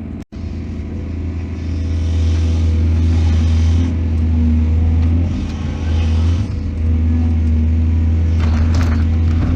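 Heavy excavator's diesel engine running steadily with a deep hum. It breaks off for a split second just after the start, there are two stretches of hissing in the middle, and there is a short clatter near the end.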